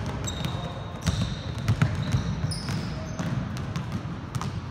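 Several basketballs being dribbled on a hardwood gym floor, a quick overlapping patter of bounces, with short high squeaks of sneakers on the court.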